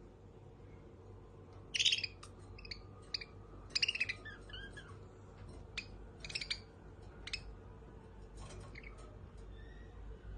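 Pet budgerigars chirping: a scattering of short, sharp chirps and brief chatter, loudest about two and four seconds in, over a faint steady hum.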